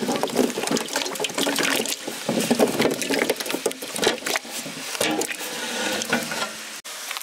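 Halved small potatoes pushed off an aluminium plate into a large aluminium pot of water, a quick irregular run of splashes and plops with knocks of potato on metal.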